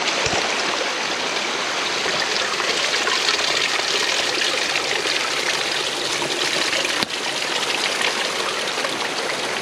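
Steady rushing and trickling of a small stream cascading down a mossy rock face, close to the microphone.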